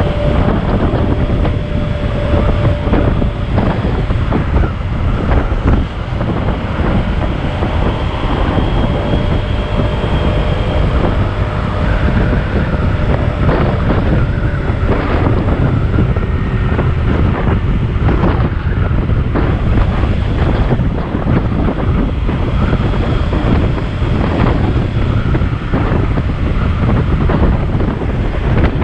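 Wind rushing over the microphone of a Honda PCX scooter being ridden at about 58 km/h, with the scooter running under it and a faint steady whine that comes and goes.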